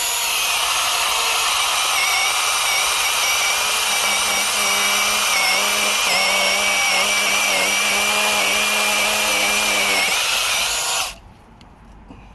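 Cordless 6-inch mini chainsaw running as it cuts through a 10-inch tree trunk, with a steady electric motor whine whose pitch dips now and then under load. It stops abruptly about eleven seconds in.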